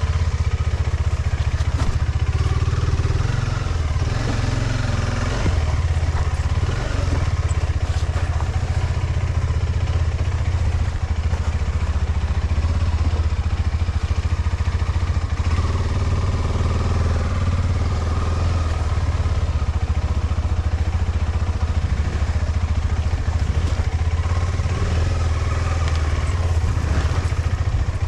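KTM 390 Adventure's single-cylinder engine running steadily as the motorcycle is ridden, with a heavy low-pitched noise and a constant hiss of wind and road noise.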